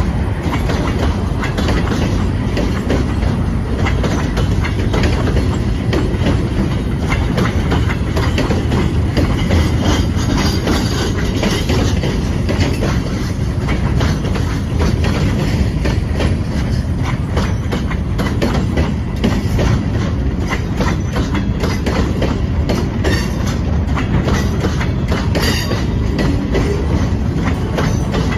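Train rolling steadily past, its wheels clicking over the rail joints without a break.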